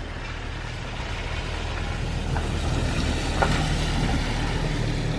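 A vehicle driving past. Its engine and tyre noise builds steadily to a peak about four seconds in, then starts to fade.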